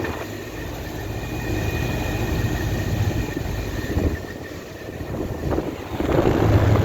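Outdoor central air-conditioner condenser unit running: a steady low electrical hum with its fan, and a thin whine for a couple of seconds after the start. About six seconds in a louder rush of air noise comes in. The unit may be running without its compressor.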